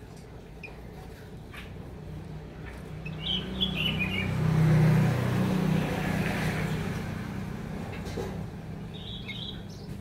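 Sooty-headed bulbuls chirping: a short burst of high chirps about three and a half seconds in, and another near the end. Under them a low rumble swells to its loudest around the middle and then fades.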